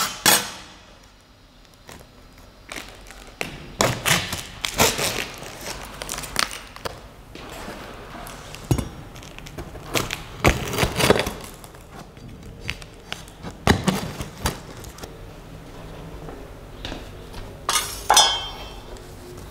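Irregular knocks, thuds and scraping from a large cardboard box being handled on a glass-topped table while its plastic packing straps are cut, with a louder clatter near the end.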